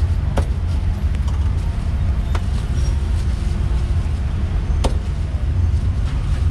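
Steady low rumble of street traffic, with three sharp knocks about two seconds apart from a cleaver striking a wooden chopping block.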